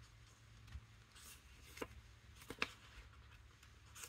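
Faint rustles and light taps of thin decorative paper sheets being handled, a few brief ones through the middle, the sharpest a little past halfway, over a low steady hum.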